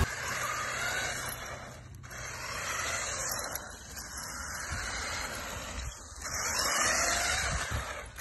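Remote-control toy car driving on asphalt in several short runs. Its small electric motor whines and rises in pitch as it speeds up, over the hiss of its tyres.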